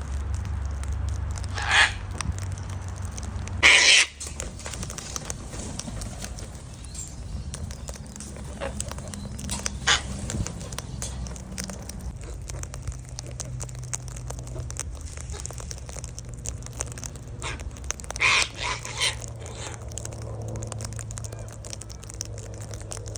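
Cockatoos giving a handful of short, harsh screeches spaced out over several seconds, the loudest about four seconds in and a few close together near the end, over a low steady rumble.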